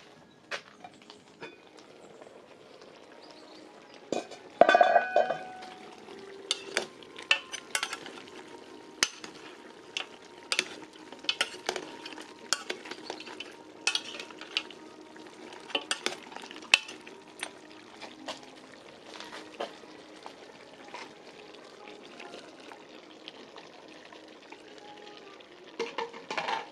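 Goat meat sizzling in a pot while being stirred, with many sharp knocks of a spoon against the pot and one loud ringing metal clang about five seconds in.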